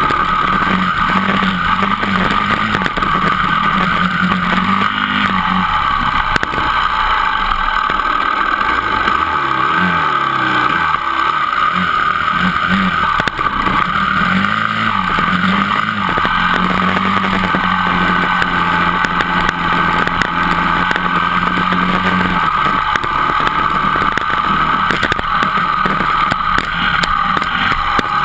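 Dirt bike engine running under way on a gravel road, its pitch holding steady, then wavering up and down through the middle as the throttle changes, then steady again.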